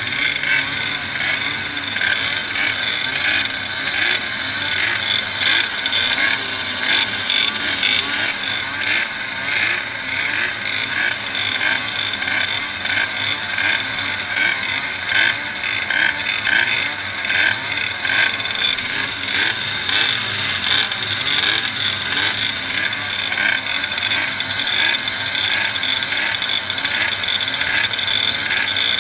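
Many small two-stroke moped engines running together, idling and being revved, their overlapping pitches wavering up and down in a continuous buzzing din.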